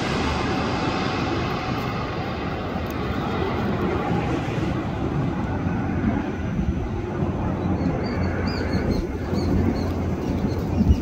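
Jet airliner's engines rumbling steadily as it descends on final approach to land, with faint high chirps near the end.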